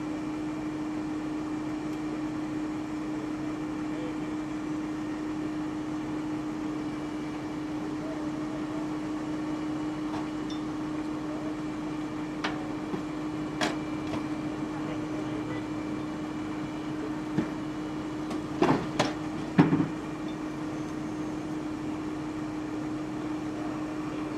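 A steady mechanical hum with one constant droning tone, like idling machinery, broken about halfway through by a handful of short sharp knocks and clanks.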